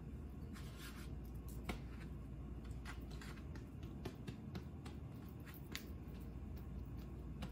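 Faint soft pats and rubbing of floured hands pressing a sticky yeast dough on a wooden cutting board, heard as scattered small taps and clicks over a low steady hum.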